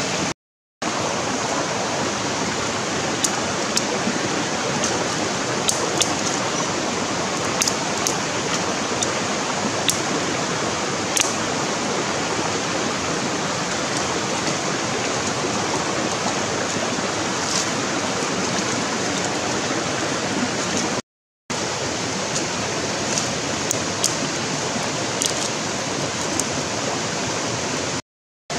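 Steady rushing of a shallow river running over rocks, with scattered light clicks and knocks of stones and dry sticks being handled. The sound cuts out completely for a moment three times.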